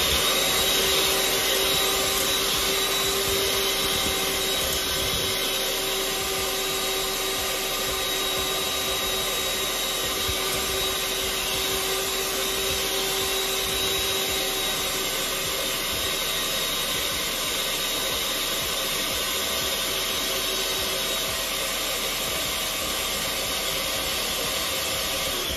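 Electric hand mixer running at a steady speed with a high motor whine, its beaters whisking eggs and sugar in a glass bowl.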